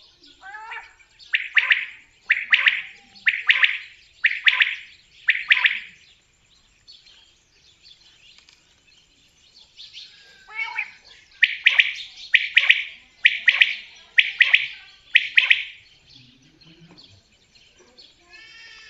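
Common quail singing: two runs of its sharp call repeated about once a second. The second run starts about ten seconds in, and each run is led in by fainter falling notes.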